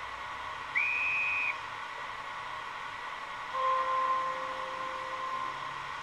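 Sound decoder of a Märklin HO model of the DB E 03 electric locomotive, played through the model's small loudspeaker: a short, high whistle about a second in, then a lower, longer horn tone of about two seconds, over a steady faint hiss.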